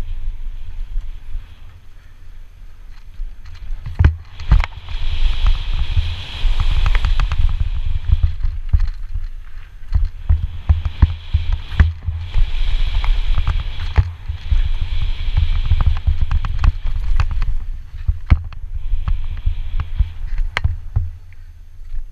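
Banshee Darkside 650B downhill mountain bike ridden fast down a dirt jump trail: heavy wind rumble on the microphone, tyres rushing over packed dirt, and sharp knocks and rattles of the bike over bumps and jump landings. The rushing and rattling grows louder for several seconds at a time, with the hardest knocks about four seconds in and again near the end.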